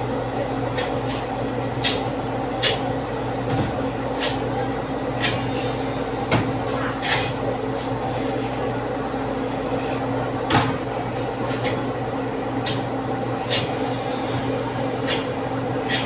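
Knife knocking against a cutting board as a whole chicken is cut up: sharp, irregular knocks roughly every second, over a steady machine hum.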